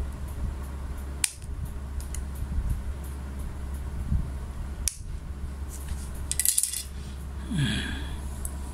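Small scissors snipping the tag ends of a fishing-line knot: two sharp metallic clicks, about a second in and about five seconds in, over a steady low hum.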